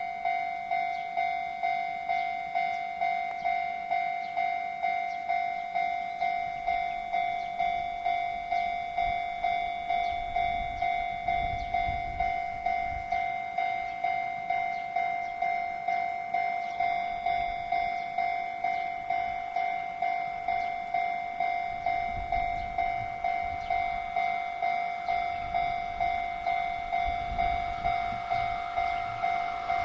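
Japanese railway level-crossing warning bell ringing steadily, an even electronic clang close to twice a second, sounding because a train is coming. Near the end the running noise of the approaching freight train, an EF66 electric locomotive hauling container wagons, starts to build under it.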